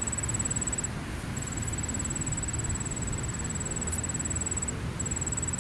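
Steady rumble of distant highway traffic. Over it runs a thin, high, finely pulsing tone that breaks off twice.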